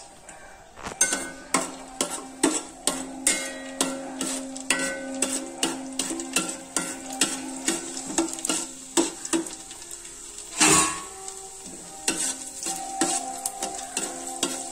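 Cashew nuts and raisins frying in ghee in a steel pan, stirred with a metal spoon: the spoon clicks and scrapes against the pan a few times a second over a light sizzle, with one louder scrape about two-thirds of the way through.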